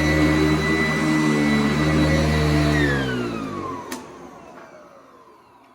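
Sanitaire S675 upright vacuum cleaner running steadily, then switched off a little under three seconds in, its motor whine falling in pitch as it spins down. A single click sounds during the wind-down.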